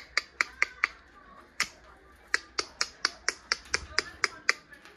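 A quick series of sharp clicks, about four to five a second, in two runs with a short break between them.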